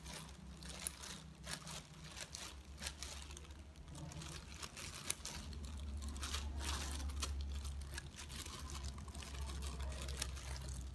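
Kitchen scissors snipping Vietnamese coriander (rau răm) sprigs into small pieces, a run of short crisp snips mixed with the crinkle of plastic food-prep gloves. A low steady hum runs underneath, growing louder about halfway through.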